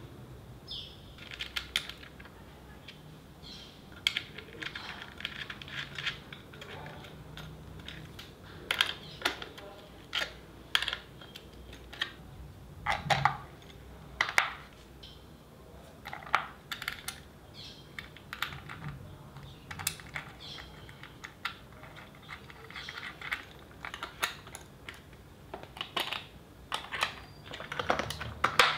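Small metal washers and nuts clicking and clinking as they are fitted by hand onto the bolts of an air walker's footplate. The clicks come irregularly throughout.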